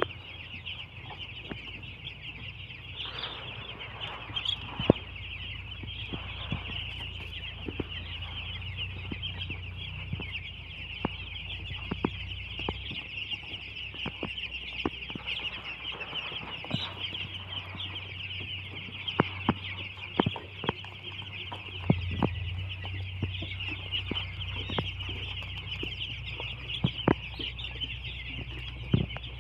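A large flock of two-day-old broiler chicks peeping continuously in a dense, high-pitched chorus. Scattered sharp clicks and a low steady hum run underneath.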